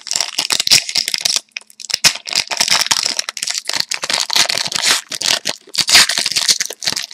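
Plastic wrapper of a 2011-12 Score hockey card pack crinkling and crackling as it is worked open and torn, with a short pause about a second and a half in; the pack is a stubborn one to open.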